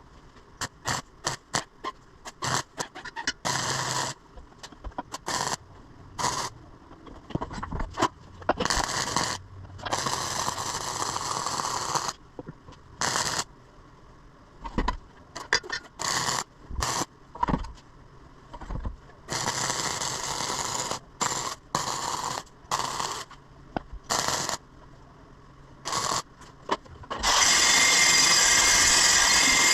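Welding on steel exhaust pipe: a string of short crackling bursts of welding arc, from a fraction of a second to about two seconds each, with pauses between, as pipe sections are tacked and welded together. Near the end a steady, loud power tool starts up and runs on.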